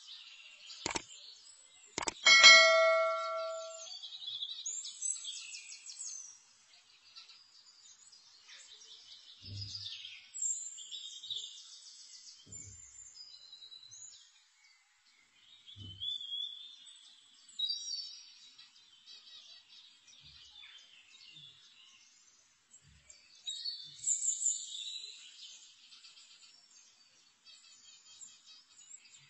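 A steel cooking pan rings out once with a clang about two seconds in, struck by the spatula, the ring fading over a couple of seconds; a few dull knocks of the spatula against the pan follow. Small birds chirp and trill throughout in the background.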